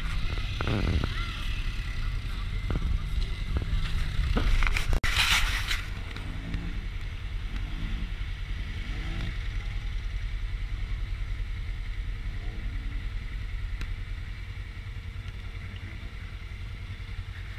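Polaris RZR side-by-side's engine running steadily at low revs, with wind on the microphone. From about six seconds in, an ATV's engine rises and falls in pitch roughly once a second as it churns through a muddy water hole.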